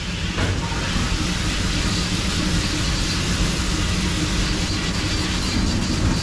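Steady rumble and hiss of a moving vehicle, with no clear single event.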